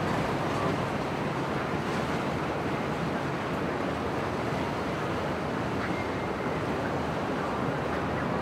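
Steady rushing noise of waves and wind, even throughout, with no distinct engine tone or sudden sounds.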